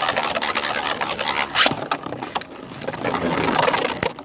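Plastic clicking, rattling and scraping from 3D-printed Beyblade spinning tops and their launchers, with one sharp clack about one and a half seconds in.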